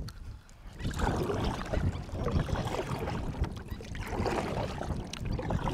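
Wind buffeting the microphone and choppy water lapping against a kayak's hull, with scattered small knocks.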